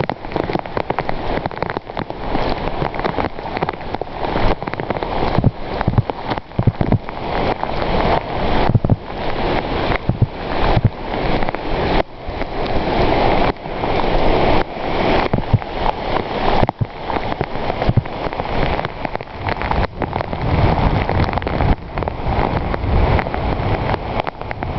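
Heavy rain pouring onto a wet driveway and foliage, its level surging and easing in gusts. Wind buffets the microphone with a low rumble near the end.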